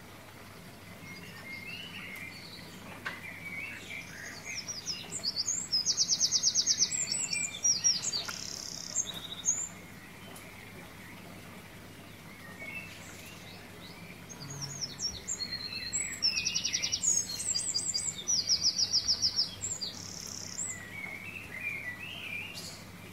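Birdsong: songbirds chirping, with two bouts of rapid high trills, one about five seconds in and another about fifteen seconds in, each lasting around five seconds.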